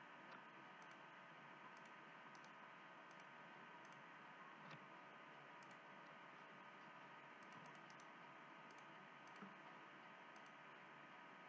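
Near silence: faint computer mouse clicks and keyboard taps, a dozen or so scattered through, over a steady low hiss.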